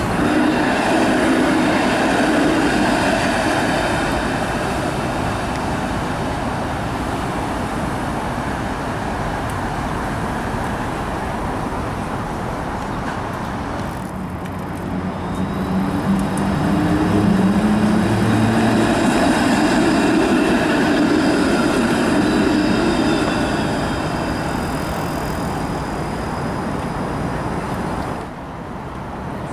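Toronto's Bombardier Flexity Outlook streetcars running on street track, mixed with passing road traffic. The noise swells and fades again in the middle.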